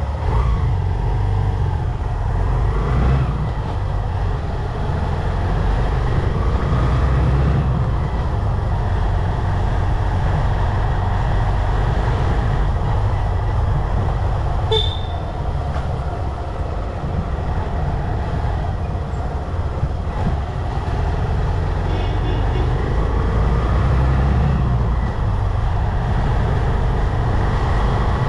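Steady rumble of a motorcycle riding through town traffic, with wind buffeting the microphone. Short horn toots sound about halfway through and again a little later.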